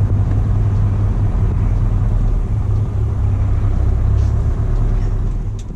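Scania R500 V8 diesel with open, straight-through exhaust pipes running at low speed, a steady deep rumble. It starts to fade out near the end.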